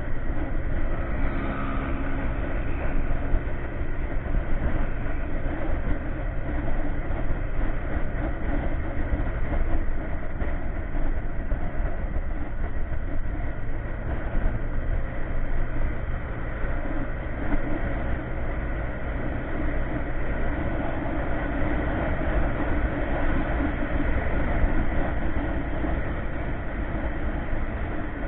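Steady wind rumble on the microphone mixed with the drone of a motor scooter's engine at cruising speed.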